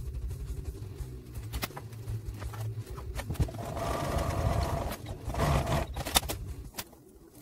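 Domestic electric sewing machine stitching lace: a low hum with small clicks, then the machine runs louder from about halfway and stops briefly near the end.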